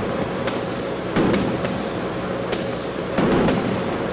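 Scattered sharp firecracker pops from old, defective Temple of Heaven cannonades being set off and got rid of, over the steady hum of a gas generator.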